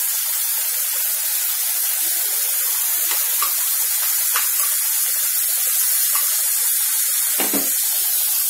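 Onions, tomato, green chillies and herbs sizzling in hot oil in a metal kadai, a steady high hiss, with ginger-garlic paste just added. A few light ticks of the slotted spoon and one dull knock near the end.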